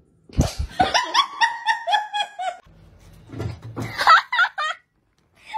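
Two dull thumps, then a person laughing in a quick run of short repeated "ha" sounds; near the end, a few high-pitched wavering cries.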